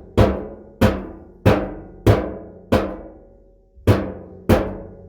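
A rock hammering the tin of a metal bathtub around the drain hole, denting the metal down so water will run into the drain. About seven hard blows, a little over one a second, each ringing out metallically, with a brief pause before the last two.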